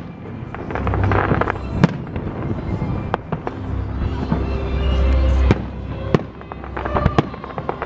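A fireworks display: aerial shells bursting with several sharp bangs a second or more apart, over a low rumble.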